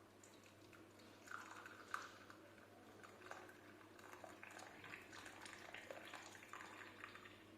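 Faint clinks and scraping of kitchen utensils with a little liquid sound, the sort made when turmeric milk is poured or strained from the pan and served. The sharpest clinks come between one and two seconds in.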